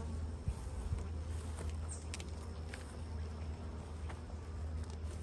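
Honeybees buzzing around an open hive, over a steady low hum, with a few faint clicks.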